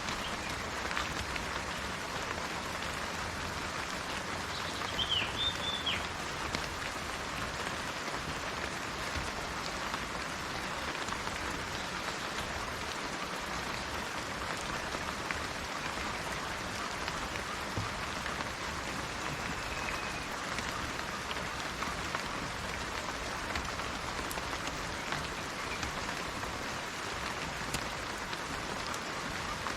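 Steady rain falling in a rain forest, an even hiss of drops. Bird calls come over it: a quick group of short high chirps about five seconds in, and a fainter drawn-out whistled note later on.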